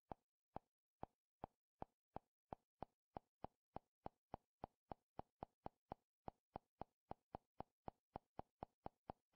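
Short, soft interface clicks about three times a second: the menu's navigation tick sounding with each step as the selection scrolls down a channel list.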